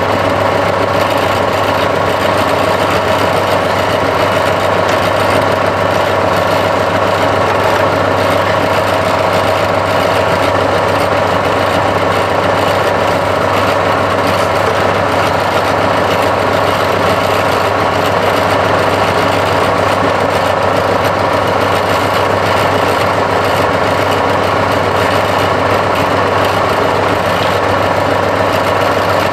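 John Deere 6125 tractor's diesel engine idling steadily, close by, with an even drone throughout.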